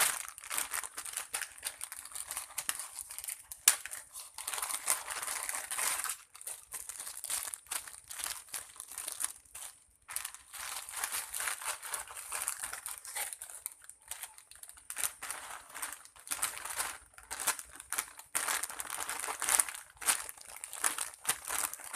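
Crinkling and crackling as squishy toys are squeezed and handled, in runs of a few seconds with short breaks between them.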